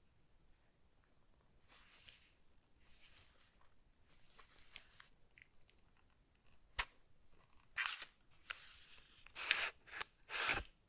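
Keyboard packaging handled during an unboxing: a run of short rustles and scrapes, a single sharp click about two-thirds of the way in, then louder rustling bursts near the end.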